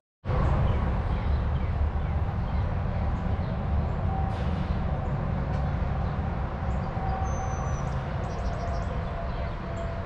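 Outdoor ambience dominated by a steady low rumble, after a split-second gap at the start, with a few faint, short, high bird chirps in the second half.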